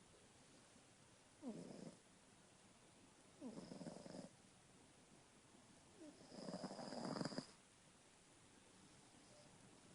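Small cat snoring: three snoring breaths, each starting with a quick falling whistle, each longer and louder than the one before, the last about a second and a half long. The owner took this snoring as a warning sign of feline respiratory problems.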